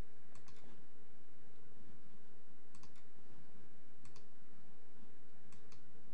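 Computer mouse button clicks: four small groups of short, sharp clicks about a second and a half apart, over a steady low background hum.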